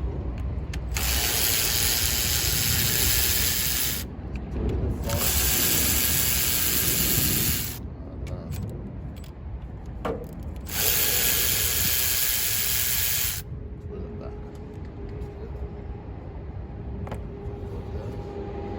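Power tool run in three bursts of roughly two and a half to three seconds each, starting and stopping abruptly, with quieter handling noise in between.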